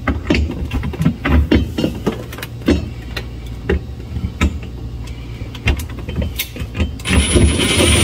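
Plastic fridge panel parts and clips being handled and pushed into place: a run of sharp clicks and knocks with dull thuds. About seven seconds in, a steady motor whir starts and becomes the loudest sound.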